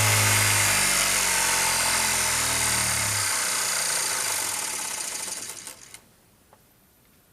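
Small DC motor spinning a rotary switch with brushes, a steady electric whir with a hiss, fading out and stopping about six seconds in. A few faint clicks follow.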